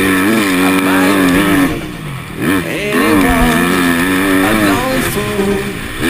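Motocross bike engine revving hard while ridden, its pitch rising and falling with throttle and gear changes. The throttle is briefly rolled off about two seconds in, then the engine picks up again.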